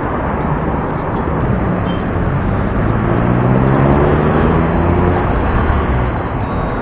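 Road traffic noise, with a passing vehicle's engine rising in pitch and getting louder from about two seconds in, then easing off near five seconds.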